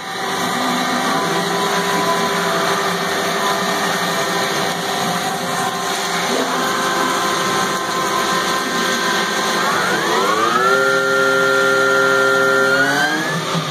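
Kiwa KH-45G horizontal machining center running, its 15,000 rpm spindle whining in several steady tones over a hiss of coolant. About ten seconds in the whine rises and settles at a higher pitch as the spindle speeds up, and it climbs again briefly near the end.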